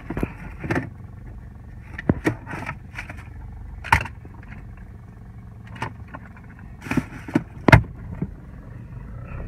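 Car cabin with the engine running, a steady low hum, and a dozen or so sharp clicks and knocks from handling things inside the car, the loudest a little before the end.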